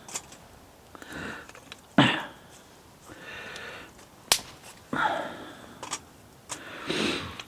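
A few sniffs and breaths close to a clip-on microphone while a mug and pot are handled, with a thump about two seconds in and a sharp click a little past four seconds.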